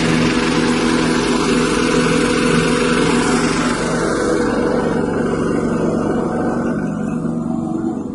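Small 6.5 hp petrol engine running steadily as it drives a rice-husk grinding mill. A loud rushing noise over the engine dies away about halfway through while the engine keeps running.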